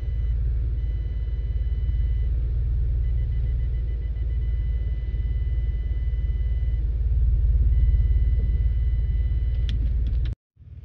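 Low rumble of a car heard from inside the cabin while reversing slowly, with a parking sensor beeping over it: short beeps, a quick run of beeps, then long steady tones as the tow bar closes in on the trailer hitch. The sound cuts out briefly near the end.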